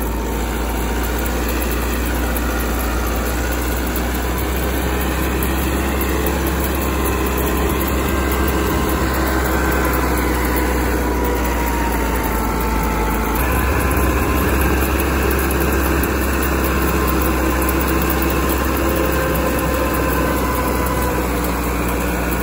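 Tractor diesel engine running steadily under load, driving a super seeder (a PTO-driven rotary tiller and seed drill) through the soil. The drone shifts abruptly about 13 seconds in.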